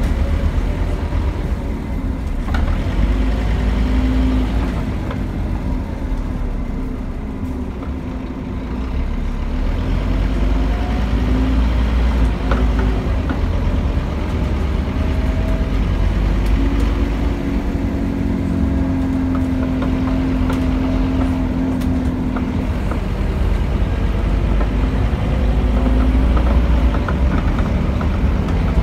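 Scania N230UD Omnicity double-decker bus's five-cylinder diesel engine running under way, heard from on board, its note rising and falling with speed, with occasional rattles from the bodywork.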